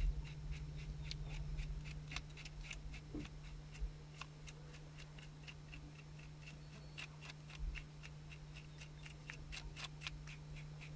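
Knife scraping the scales off a fish: a quick run of light, scratchy ticks, about four a second.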